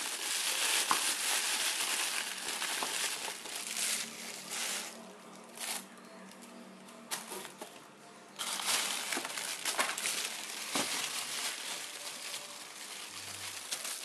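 Clear plastic bag crinkling as it is handled and pulled off a woven bamboo basket. The crinkling eases off for a few seconds in the middle, then picks up again.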